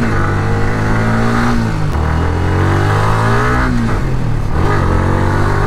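Yamaha R15 V3's 155 cc single-cylinder engine accelerating hard, its pitch climbing steadily through the revs and dropping back with an upshift about two seconds in and again about four seconds in.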